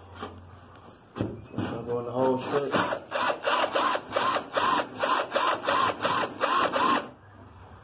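Cordless drill boring a hole through a fiberglass hood. The cutting comes in rapid, even pulses, about three a second, then stops about a second before the end.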